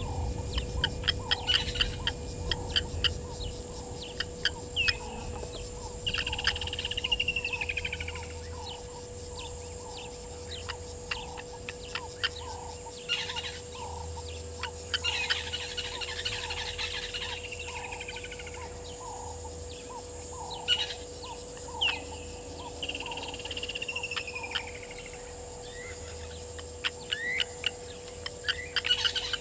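Birds calling: bursts of quick, sharp clicking notes and a few down-slurred whistled phrases, over a steady high insect buzz.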